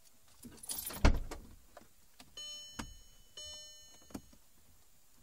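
A heavy clunk about a second in, then two steady electronic beeps about a second apart, each held for nearly a second, with a few small clicks.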